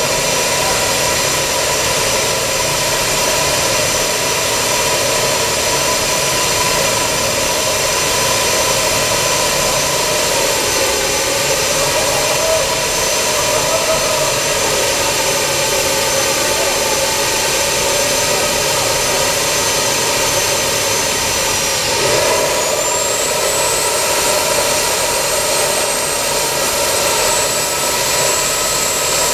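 Homemade gas turbine engine running loud and steady with a high whine. About 22 seconds in, the whine dips briefly and then rises to a higher pitch as the turbine speeds up.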